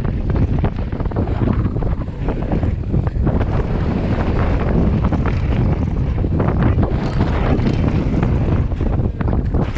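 Heavy wind buffeting a chest-mounted action camera's microphone at riding speed. Tyres run over loose dirt and gravel, and the Commencal Meta HT hardtail mountain bike knocks and rattles repeatedly over the rough ground.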